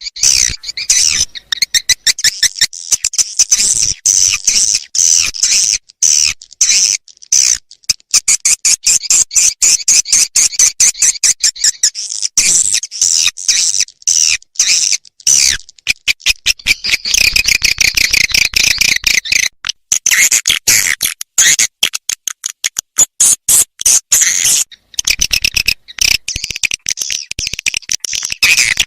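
Recorded swiftlet call of the 'lintasan' kind, used at swiftlet houses to draw in passing birds: dense, very rapid high-pitched twittering chirps with brief breaks throughout.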